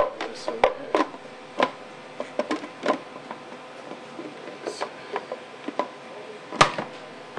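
Hard plastic clicks and knocks as a food processor's clear lid and feed-tube pusher are handled and fitted into place. There are about fifteen separate clicks, the loudest about six and a half seconds in, over a faint steady hum.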